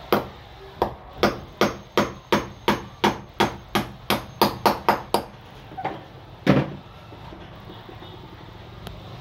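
Hammer driving a small nail through a metal mounting clip into a wall: a run of about fifteen quick blows, roughly three a second, then a short pause and one harder final blow.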